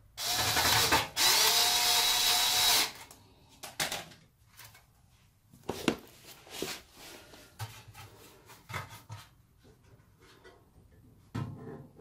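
Cordless electric screwdriver running in two short spells, together about two and a half seconds, with a short break about a second in. After that come light clicks and knocks as the dryer's sheet-metal heating-element housing is handled.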